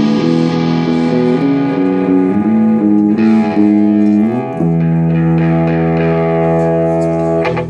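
Telecaster-style electric guitar played through a Peavey combo amp: a run of sustained notes, then one sound left ringing for about three seconds and cut off near the end.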